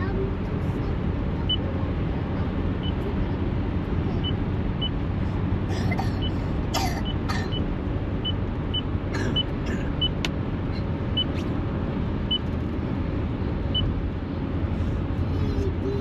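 Steady road and engine noise inside a moving car, a low rumble, with faint short high ticks now and then.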